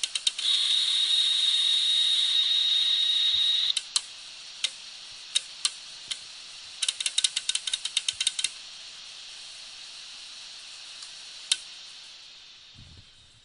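Failed, opened Western Digital WD2000 hard drive running: its head arm clicks in quick runs, and a loud, steady, high-pitched screech lasts about three seconds. Scattered single clicks and a second run of rapid clicks follow over a steady hiss, which dies away near the end.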